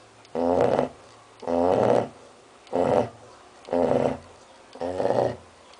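A six-month-old Labrador retriever snoring in its sleep: five snores, each about half a second long, coming about a second apart.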